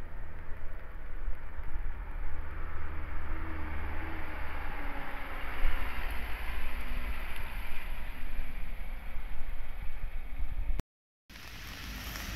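Wind rumbling on the microphone over the low running of truck engines. Near the end the sound cuts out briefly and comes back as a quieter, steady hiss.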